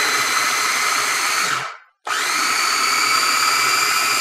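Electric mini food chopper mincing garlic and ginger: a steady motor whine that cuts out about two seconds in and starts again right after.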